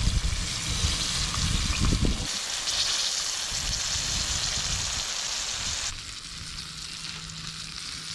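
Battered bluefish pieces frying in a skillet of hot oil, a steady sizzle. It grows louder about two seconds in and drops back about six seconds in.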